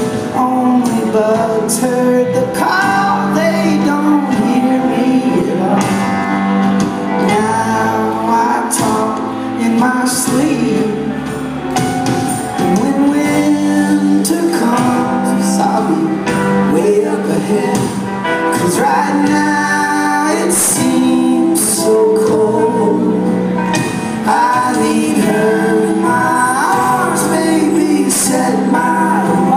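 Live rock band playing a song through the PA: drum kit with cymbals, bass guitar and electric guitars, with singing over the top.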